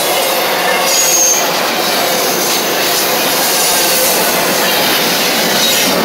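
Norfolk Southern double-stack intermodal freight train's well cars rolling past: a loud, steady noise of steel wheels running on the rails, with a short high squeal about a second in.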